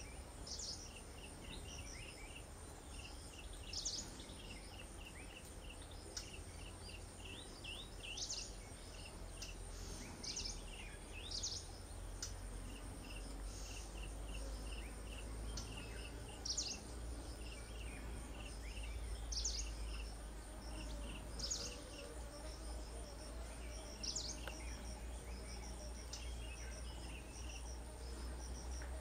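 Insects chirring: a steady high buzz with rows of rapid chirps, and short sharp high chirps every second or two, over a low rumble.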